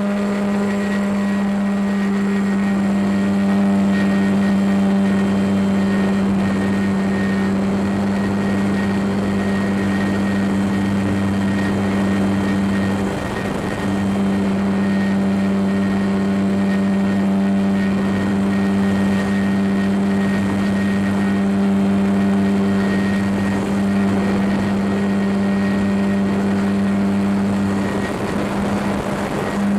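RC model plane's motor and propeller running with a steady drone, picked up by the camera mounted on the plane itself. The drone dips briefly twice, about 13 seconds in and again near the end.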